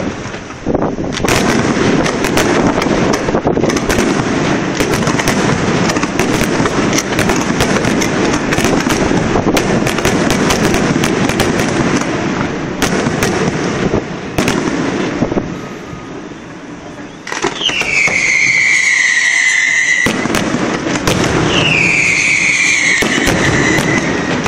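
Fireworks display: a dense run of crackling and sharp bangs from aerial shells, then, after a short lull, two long falling whistles.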